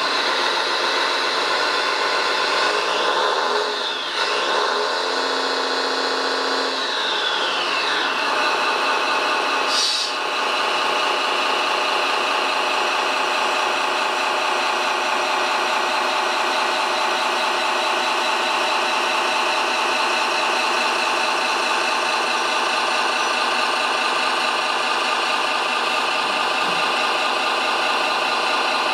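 Radio-controlled model Liebherr mobile crane's drive motors whining steadily as the crane slews and raises its boom. The pitch swings up and down in the first several seconds, then holds even, with a short click about ten seconds in.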